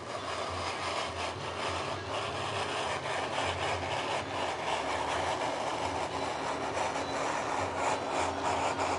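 A straight-bladed craft knife drawn steadily through foam board, a continuous scratchy rasp that grows a little louder toward the end.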